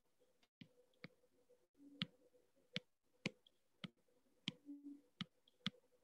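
Faint, sharp taps of a stylus on a tablet's glass screen, about ten at irregular intervals, as hand-drawn annotations are erased.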